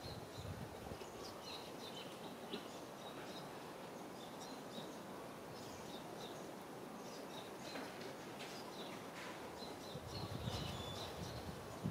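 Outdoor ambience: scattered short, high chirps of small birds over a faint steady background hiss, with a stretch of low rustling about ten seconds in.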